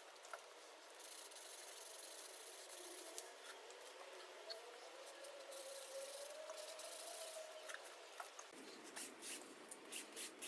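A cloth rag soaked in acetone is rubbed hard over the back of a sheet of photocopy paper lying on fabric, a faint scrubbing of cloth on paper. Near the end it turns into quick, even strokes, about three a second.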